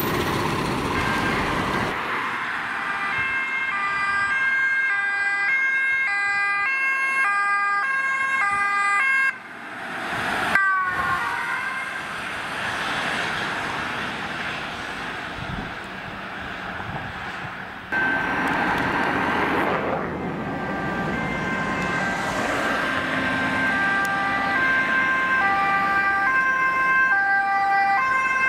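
Two-tone sirens of emergency vehicles driving past at speed, stepping back and forth between a high and a low note, over engine and tyre noise. The sound breaks off abruptly about nine seconds in and again near eighteen seconds, each time picking up with another siren.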